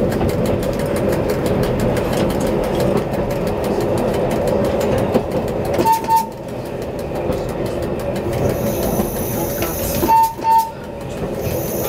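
Electric tram running along its track, heard from inside the driver's cab: a steady running hum with wheel noise. About six and ten seconds in, a short double beep sounds.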